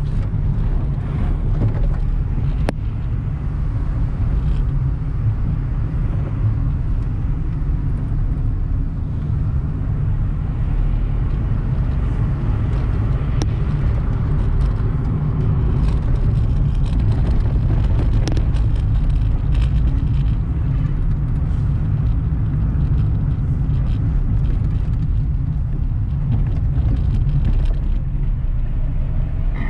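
Car cabin noise while driving: a steady, loud low rumble of engine and tyres on the road, with a few faint clicks now and then.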